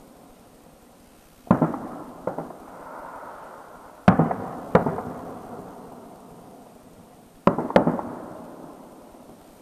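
Aerial firework shells bursting: six sharp bangs in three pairs, about a second and a half in, about four seconds in and near the end. Each bang is followed by a rolling echo that dies away.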